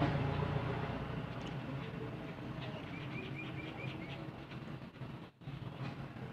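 A low rumble, like a passing vehicle, is loudest at the start and fades over the first seconds. About three seconds in, a bird gives a quick run of six or seven short chirps, about five a second.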